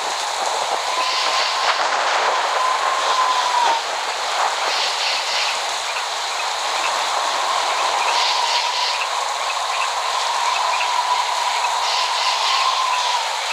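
Steady heavy rain hissing, with no thunder. A thin, steady, whistle-like tone sits under the rain through most of it and drops out briefly about four seconds in.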